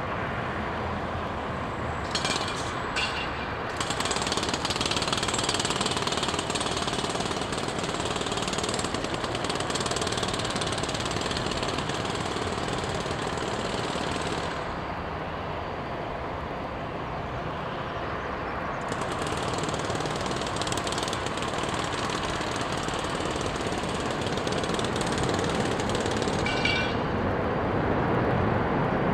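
A landing Airbus A340-600's four jet engines heard from afar as a steady rushing roar, a little quieter for a few seconds in the middle.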